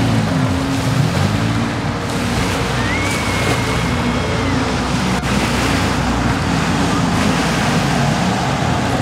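Jet ski engine running as the watercraft carves turns past, its note rising and falling over a steady wash of churning water and wind buffeting the microphone.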